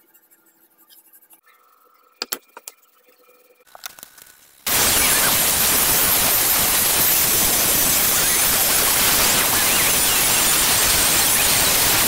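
A few light clicks and knocks as wooden slats are handled, then about four and a half seconds in a handheld electric disc sander switches on abruptly and runs steadily, its round pad sanding a teak board.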